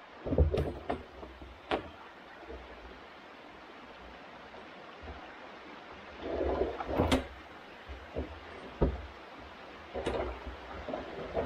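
Knocks, bumps and scrapes of a large empty water tank being tipped and shifted over ground and logs. They come in irregular bunches, with a longer scrape and a sharp knock about two-thirds of the way in. A creek runs steadily in the background.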